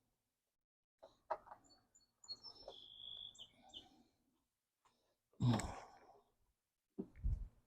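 Scattered knocks and clicks from parts being handled while the new ignition switch is worked into the riding mower's panel, the loudest a heavy thump a little past halfway and two more knocks near the end. A bird chirps briefly in the middle.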